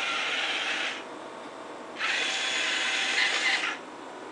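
Parallax Scribbler robot's geared wheel motors whirring as it drives and turns, in two spells: about a second, a pause of a second, then nearly two seconds more.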